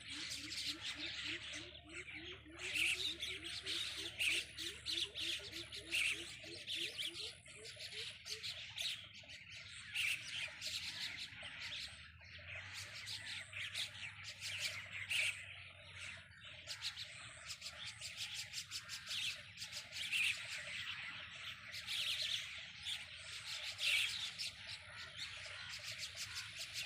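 Dense chorus of many birds chirping and squawking together, calls overlapping without pause, typical of a flock gathering at evening.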